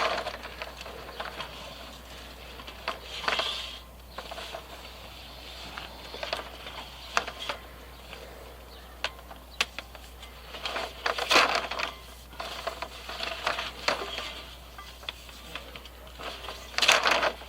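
Irregular clicks, knocks and short rattles of the submersible pump and its drop pipe and cable being fed down into the well.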